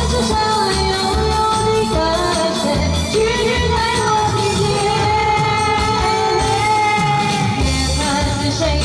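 A pop song playing: a singer holds long notes over the band's steady beat.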